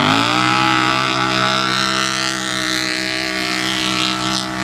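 Side-by-side UTV engine revving up hard as it pulls away and spins its tyres in sand, then held at high revs with a steady, even drone.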